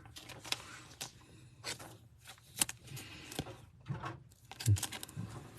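Trading cards and pack wrappers being handled by hand: scattered soft clicks, slides and rustles.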